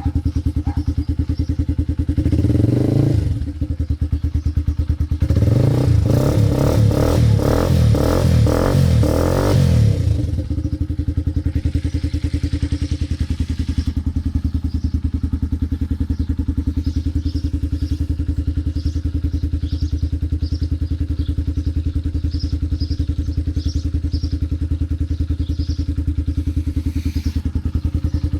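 Kasinski GF motorcycle engine running through an aftermarket Roncar round aluminium sport exhaust, idling steadily. It is blipped briefly about two seconds in, held at higher revs from about five to ten seconds, then settles back to idle, with a short blip near the end.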